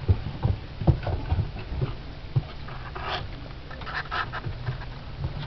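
Alaskan Malamute puppies scampering on a plywood floor: a quick run of soft thumps and patter from their paws, then a few short breathy snuffles about three to four seconds in.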